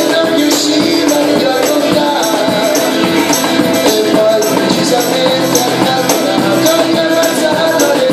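Live acoustic band music: strummed acoustic guitar with a cajón and a hand-shaken tambourine jingling on a steady beat.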